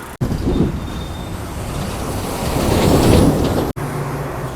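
A heavy vehicle passing close by in traffic, its rumble swelling to a peak about three seconds in, with two abrupt cuts in the sound.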